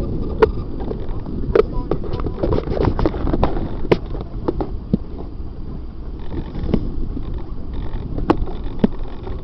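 Rumbling wind and handling noise on a model aircraft's onboard camera microphone, with irregular sharp knocks and clatter, and no motor running.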